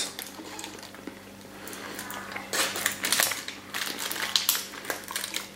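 Aluminium foil around a takeaway portion of roasted meat crinkling and crackling as it is handled, with a fork picking through the meat, in irregular crackles and light ticks that get busier about halfway through.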